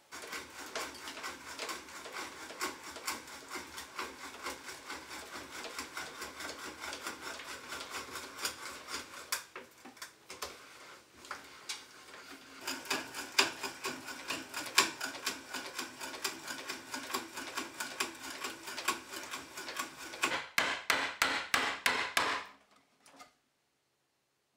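Brace and auger bit boring into a pine beam, the bit crunching and scraping through the wood in rapid strokes. Near the end comes a short run of louder, sharp knocks.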